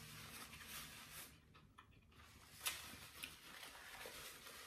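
Near silence with faint handling sounds and two short, soft clicks a little past halfway, as a person wipes her hands and mouth with a paper napkin.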